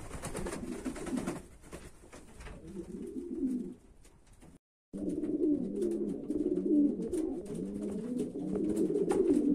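Domestic pigeons cooing, many low warbling coos overlapping. A short break about halfway through, after which the cooing is louder and denser.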